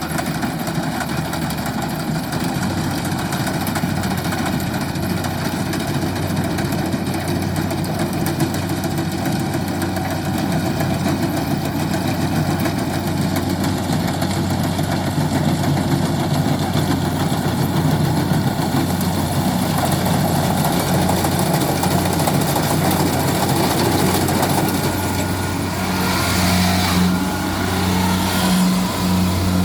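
Kubota rice combine harvester's diesel engine running steadily under work, with a brief change in pitch near the end.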